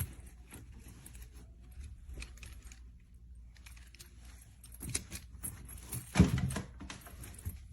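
Bike lock chain clinking and rattling as it is handled, with the loudest clatter about six seconds in.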